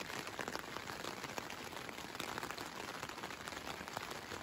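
Rain falling steadily on the tent, heard from inside as a dense, even hiss of many small drop ticks on the fabric: a downpour.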